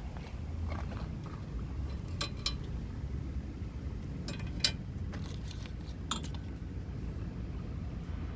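Metallic clinks and clatter, a few separate strikes with the loudest about four and a half seconds in, over a steady low rumble.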